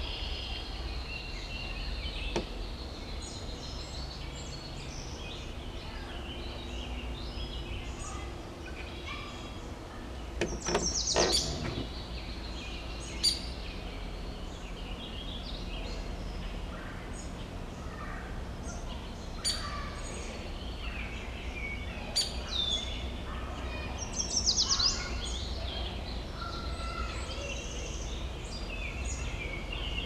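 Several birds calling, with many short chirps and calls throughout and louder bursts of rapid chattering about eleven seconds in and again about twenty-five seconds in, over a steady low rumble.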